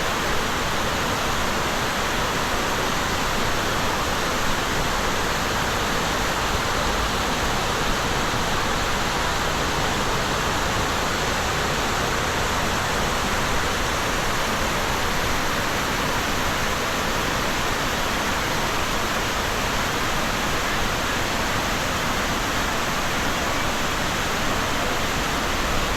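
Steady, even rush of falling water from Diyaluma Falls, running high after rain.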